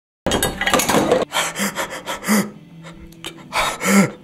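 A man's anguished cry that cuts off abruptly after about a second, followed by gasping, sobbing breaths with short strained voiced catches.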